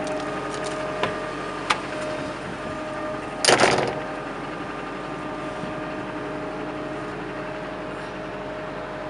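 Caterpillar M315D wheeled excavator's diesel engine idling with a steady hum. A couple of light clicks come near the start, and a brief loud noise about three and a half seconds in.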